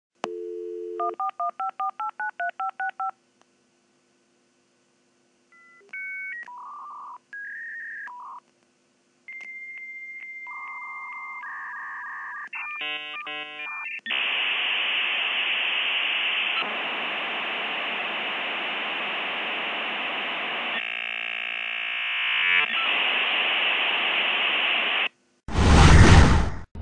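Dial-up modem connecting: a brief dial tone, a quick run of touch-tone digits, then answer and handshake tones giving way to a long hissing screech of modem data noise. A loud burst near the end.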